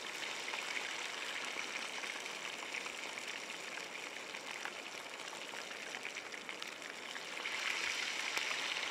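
Chicken drumsticks frying in hot oil: a steady sizzle with many small crackles, growing a little louder near the end.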